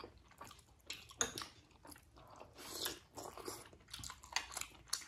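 A person chewing momo dumplings with the mouth close to the microphone: irregular wet bites and chews, each a short burst of noise.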